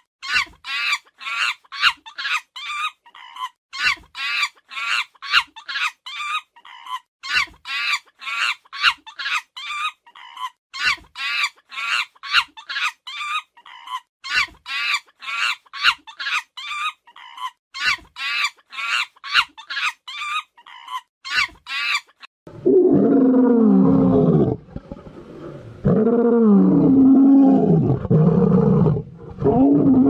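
A bird calls fast and over and over, about three short rising chirps a second, until about 22 seconds in. Then lions growl in long, low, wavering stretches, three of them, much louder than the chirping.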